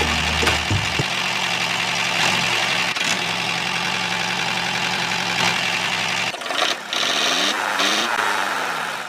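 A small motor running steadily, with a short dip in level about seven seconds in.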